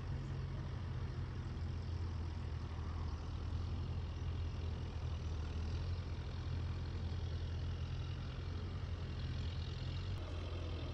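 Farm tractor engine running steadily, holding the same revs throughout.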